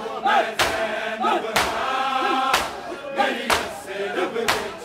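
Male mourners chanting a Shia noha in unison, with the crowd's matam (open-handed chest-beating) giving a sharp slap about once a second, five in all.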